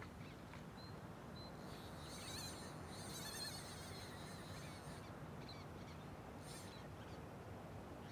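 Faint outdoor ambience: high, wavering chirps from small creatures come and go in short runs over a low, steady hiss.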